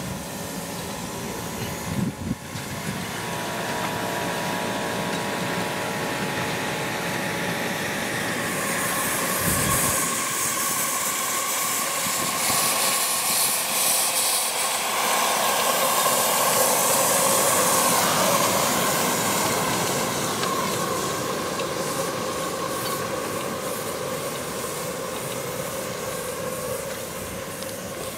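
1.5-inch scale live steam locomotives running on 7.5-inch gauge track, with a steady hiss of steam that swells and is loudest in the middle.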